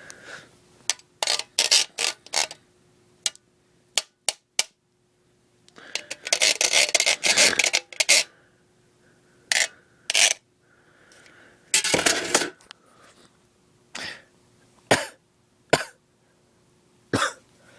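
A broken iPod touch being struck again and again with a handheld object: irregular sharp hits, some single and some in quick pairs or triples, with a dense run of rapid clattering strikes about six seconds in.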